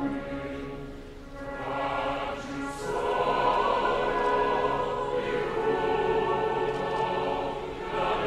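Background music with a choir singing long held chords; it fades about a second in and swells back up about three seconds in.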